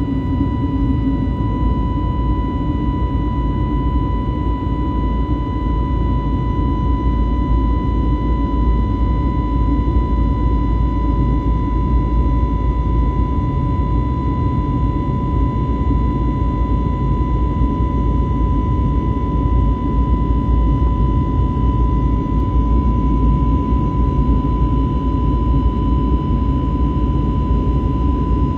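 Airbus A320 jet engines heard from inside the cabin during the climb after takeoff: a steady low rumble and rush with a steady high whine over it.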